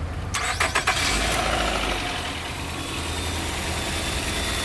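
2015 Nissan Altima's 2.5-litre four-cylinder engine cranking briefly and starting, revving up about a second in and then settling into a steady idle.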